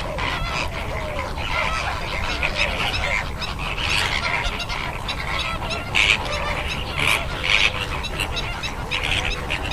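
A flock of greater flamingos calling, with many goose-like honks overlapping and a few louder calls about six and seven seconds in, over a steady low rumble.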